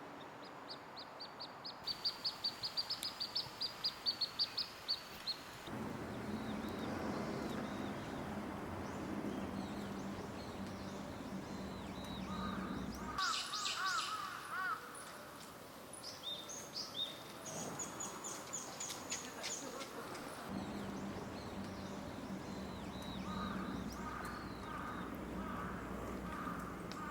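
Wild birds calling across several short clips: a fast run of high repeated notes near the start, then scattered chirps and calls over steady outdoor background noise.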